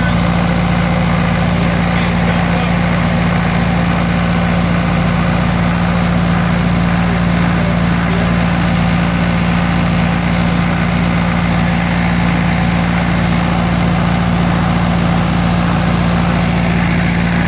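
Kohler 30R081 diesel generator set running steadily, its Hercules D-2300 four-cylinder water-cooled diesel engine held at its governed 1800 RPM, with an even, unchanging low drone.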